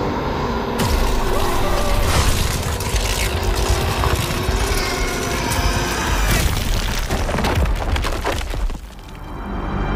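Action film soundtrack: dramatic score mixed with booms and impact sound effects. It jumps up sharply about a second in, drops away briefly near the end, then swells back.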